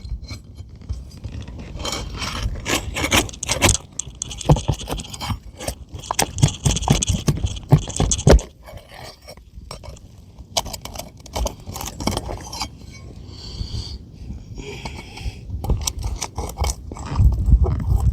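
Asphalt roof shingles being lifted and their sealant strips broken loose: repeated scraping and crackling tears with sharp clicks, pausing briefly about halfway through.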